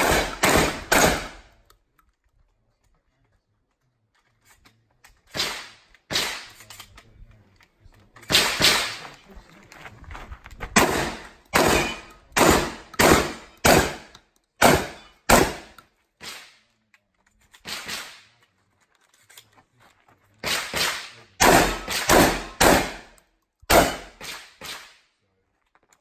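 Semi-automatic 12-gauge Beretta 1301 Comp Pro shotgun firing about two dozen shots, each a sharp report with a short echo. The shots come in quick strings of two to five, broken by pauses, the longest a few seconds near the start.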